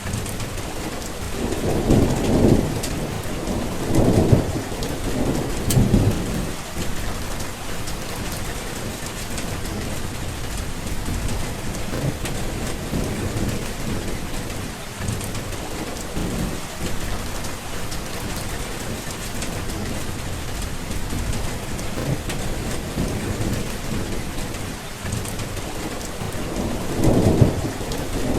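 Steady heavy rain with rolling thunder: low rumbles swell and fade in the first six seconds or so and come back near the end.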